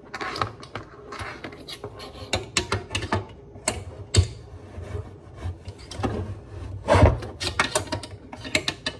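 An electric griddle being handled and fitted together on a countertop: irregular scraping, rubbing and clicking of its parts, with louder knocks about four and seven seconds in.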